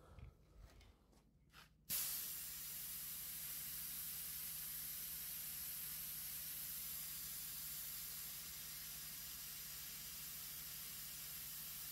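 A few handling knocks, then, about two seconds in, a hand-held air blow gun on a compressor's coiled hose is triggered: a sudden, steady hiss of compressed air blowing out, easing slightly near the end.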